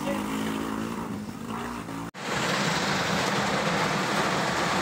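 A steady engine hum. About two seconds in, an abrupt cut leads to a louder, even rushing hiss of heavy rain on a car's windshield, heard from inside the car.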